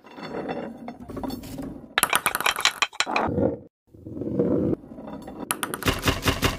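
A ball rolling and clinking through a chain-reaction marble-run contraption. Rumbling rolling stretches alternate with quick runs of sharp clicks and clinks, the busiest just after a second in, about two seconds in and near the end.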